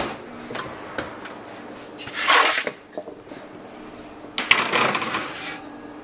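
A metal pan being handled and slid onto an oven's wire rack: a knock at the start, a short rush of noise about two seconds in, then a sharp clank about four and a half seconds in followed by about a second of metal scraping.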